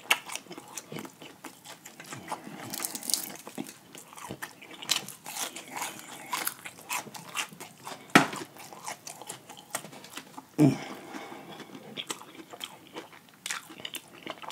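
Fried chicken legs being bitten and chewed: a steady run of crackling crunches from the breaded skin, with two louder sharp sounds about eight and ten and a half seconds in.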